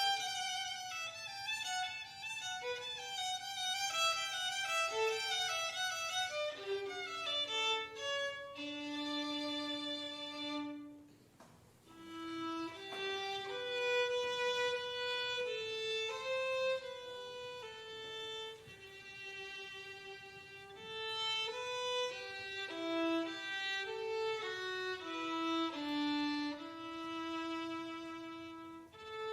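Violin playing a melody: quick running notes, then a long held note, a short break about eleven seconds in, and a slower phrase of sustained notes.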